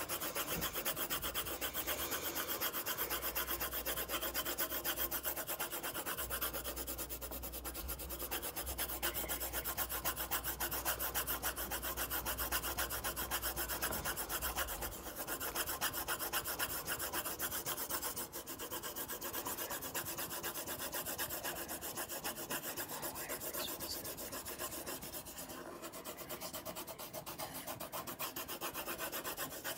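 A pencil shading back and forth on lined notebook paper, in a long unbroken run of quick, even rubbing strokes as the brown is filled in.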